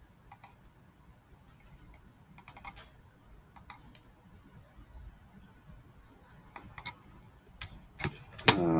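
Computer mouse and keyboard clicking: single clicks and short runs of a few quick clicks, with quiet gaps between.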